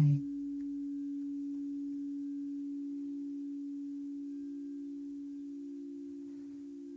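A sustained low meditation tone: two close, steady pure pitches ringing together with a slight pulsing, slowly fading.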